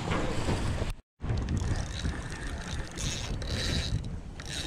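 Wind buffeting the microphone over the steady rumble of open water around a fishing boat, cutting out completely for a moment about a second in.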